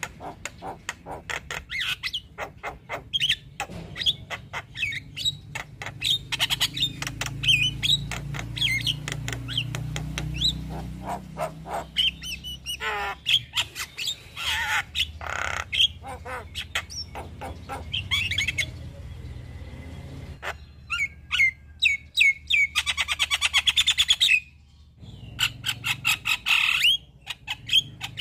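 Javan myna singing a long, varied run of whistles, chirps, squawks and clicks, with a fast trill about two-thirds of the way through.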